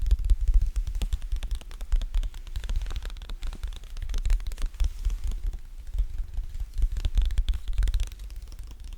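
Close-miked sticky ASMR trigger sounds: a sticky surface pulled and pressed again and again, giving a dense run of small crackling clicks over a low rumble.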